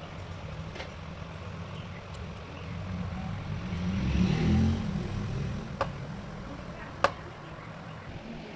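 Small homemade engine of an RC truck running with a low, steady rumble. It swells louder about four seconds in, then settles back. Two sharp clicks come near the end.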